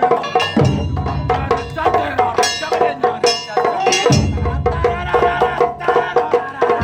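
Live Japanese taiko drums and shamisen playing a fast, rhythmic festival piece, with a quick run of sharp wooden-sounding strikes. A deep big-drum strike rings out about half a second in and another about four seconds in.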